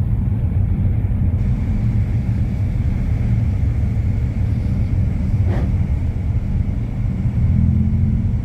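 Steady low engine and road rumble from inside a moving car's cabin, with a faint click about five and a half seconds in.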